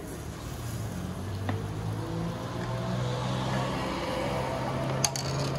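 A motor vehicle engine running close by, a steady low hum that slowly grows louder. Two sharp metallic clicks, one about a second and a half in and a louder one near the end.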